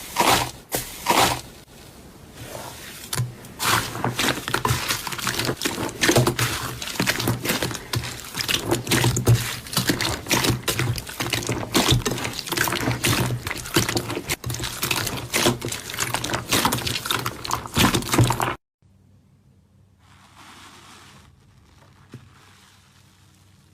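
Slime being squeezed and stretched by hand: a dense run of wet crackling and popping that cuts off abruptly about three-quarters of the way through, leaving only a faint hush.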